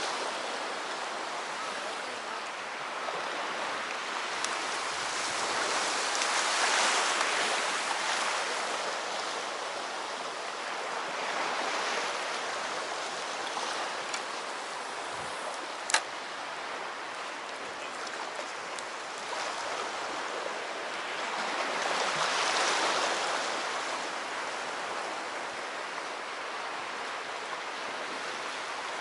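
Sea waves washing in on the shore, swelling and fading every several seconds, with one sharp click about sixteen seconds in.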